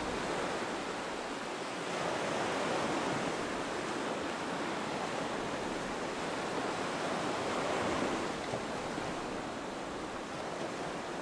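Ocean surf: a steady rushing of waves with slow swells in loudness.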